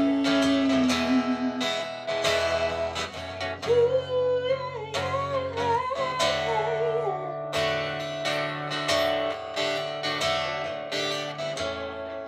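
Live music in an instrumental break: an acoustic guitar strumming chords over a steady bass line, with a sliding melody line played over it in the middle of the passage.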